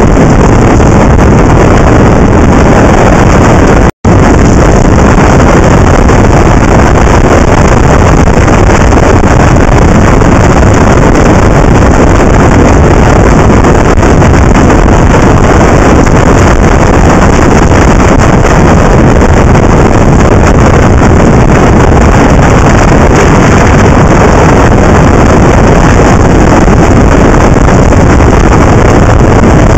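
Loud, steady wind rush on the microphone of a camera mounted on a moving motorcycle, covering the engine sound. The sound cuts out for an instant about four seconds in.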